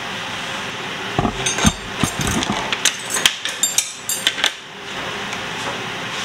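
Pots and utensils knocking and clinking in a quick irregular run of sharp knocks lasting about three seconds, over a steady background hiss.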